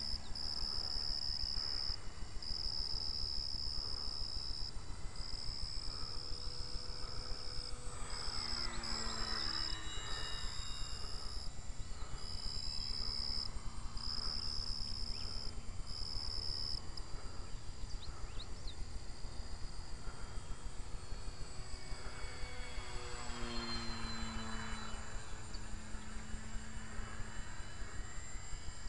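Radio-controlled P-40 model plane's motor and propeller buzzing overhead, growing louder and dropping in pitch as it makes two low passes, a third of the way in and again past the middle. Insects chirp in long, evenly repeated pulses throughout.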